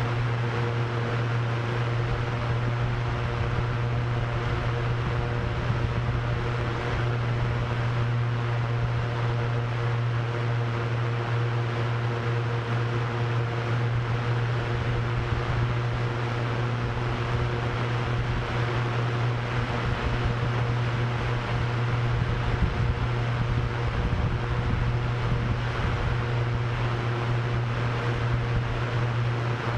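Drone propellers spinning steadily: a constant low hum with fainter higher tones above it, over a rushing wind noise with a flickering low rumble.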